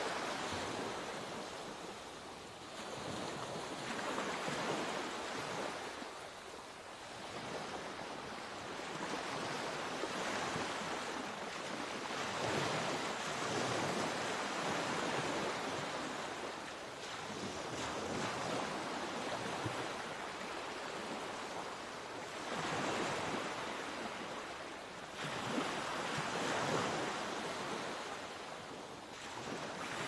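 Small waves washing onto a sandy beach: a hiss of surf that swells and fades every four to five seconds.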